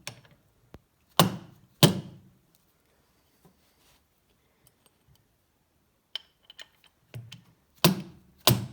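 Hammer blows driving a tight piston pin out of a connecting rod: two strikes about a second in, a pause with a few light clicks, then two more strikes near the end.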